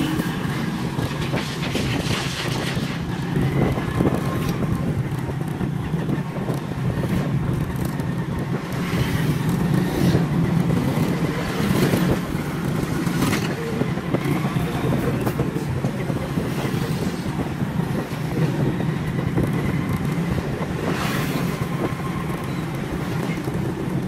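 Small motorcycle engine running steadily while riding, heard from the rider's seat, under a constant rushing noise.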